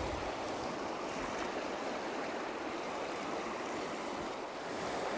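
Shallow mountain river rushing over a rocky riffle and small cascade: a steady, even rush of water.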